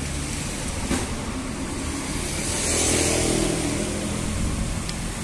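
Road traffic passing close by: a steady engine hum, swelling as one vehicle goes past about halfway through.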